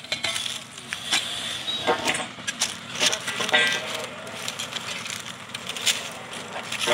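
Truck-mounted borewell drilling rig running, with repeated sharp metallic clanks and knocks from pipes and fittings being handled at the borehole.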